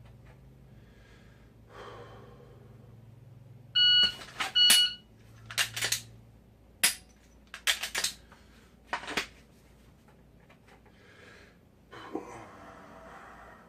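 Shot timer's start beep, then its par-time beep about 0.8 s later, with the sharp clicks and knocks of a Glock drawn from a holster and dry-fired; more clicks and knocks of handling the pistol follow.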